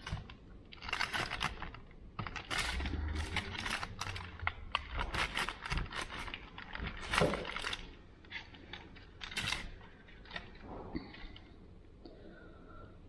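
Whole roast chicken being torn apart by hand on aluminium foil: a run of crisp crackles and rustles from the skin and the crinkling foil, thinning out about ten seconds in.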